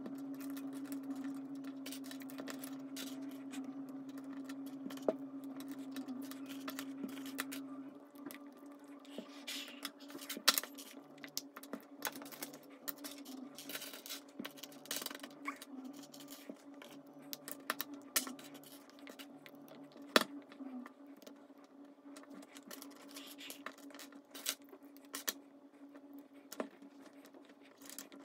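Plastic Lego bricks clicking and rattling as they are handled and pressed together, in scattered sharp clicks and small knocks. A steady low hum runs underneath, louder for the first several seconds.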